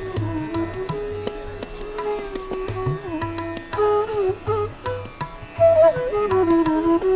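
Indian classical instrumental music: a string instrument plays a melody with sliding notes over a steady tabla beat.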